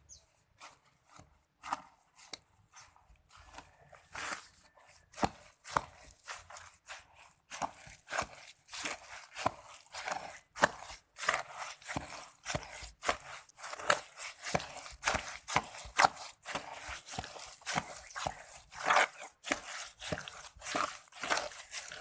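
Trowel scraping and chopping through a 1:1 cement and sand mortar mix in quick, irregular strokes. The strokes are sparse at first and become denser and louder after a few seconds.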